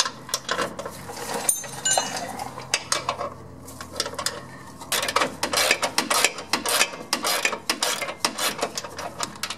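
Hand ratchet with a 17 mm socket clicking as the rear control-arm bolt is worked loose, with light metal clinks of the tools on the fittings. The clicks are sparse at first and come quick and dense from about halfway through.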